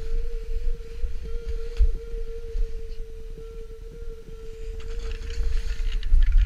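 Snowboard sliding and scraping over packed snow, with wind buffeting the body-mounted camera's microphone as a heavy rumble. A steady hum runs underneath and stops near the end.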